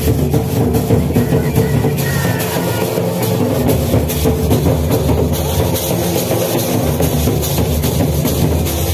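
Loud Nagpuri jhumar dance music with a steady drum beat.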